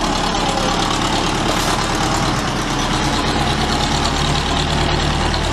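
Farm tractor engine running steadily.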